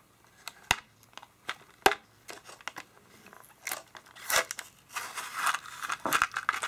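Thin clear plastic blister tray crackling and clicking as it is flexed and handled: scattered sharp clicks at first, then denser crinkling over the last couple of seconds.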